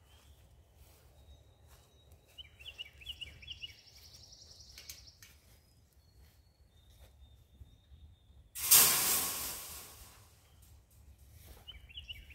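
A metal wire panel dropped onto the stack of panels on a flatbed trailer: one sudden loud crash about two-thirds of the way in that rings and dies away over a second or so. Birds chirp faintly before it.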